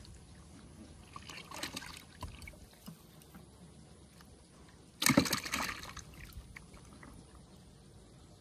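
A splash in the canal water about five seconds in, as a baited hook and float on a bamboo pole are cast in, loud and fading within about a second. A softer rustle comes about two seconds in.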